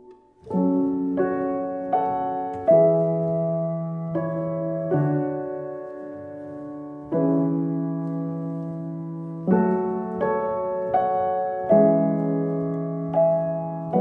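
Background music: a slow piano piece, chords struck one after another and left to ring and fade, starting about half a second in.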